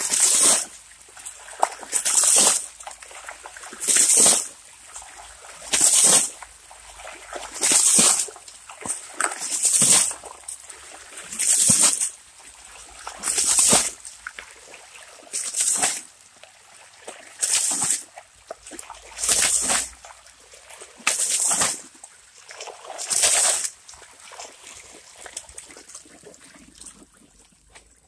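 Bucketfuls of river water thrown by hand onto gravel and a gold sluice carpet, washing the gold-bearing material. There are thirteen splashes, about one every two seconds, with water trickling over the stones between them. The splashes stop a few seconds before the end, leaving only the trickle.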